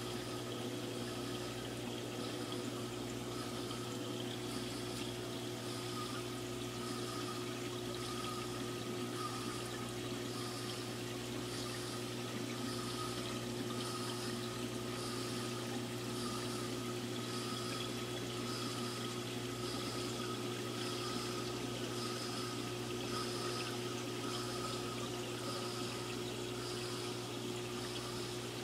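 Saltwater aquarium running: a steady pump hum with water trickling and splashing through the tank, and a faint hiss pulsing a little under twice a second.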